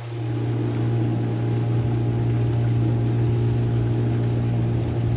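Motorboat engine running steadily at an even, low pitch. It sets in abruptly at the very start and stays constant.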